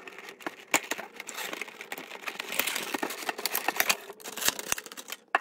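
A Funko Pop box being opened by hand and the figure taken out of its packaging: a run of small clicks, taps and crinkling rustles of cardboard and plastic.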